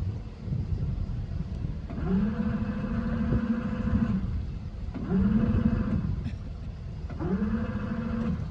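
A horn sounding three times, each blast rising briefly at the start and then held steady for one to two seconds, over a constant low rumble of wind and engine.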